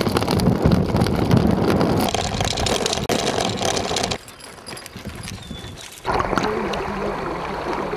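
Wind and road noise on the camera while cycling, then muddy river water sloshing and gurgling from about six seconds in.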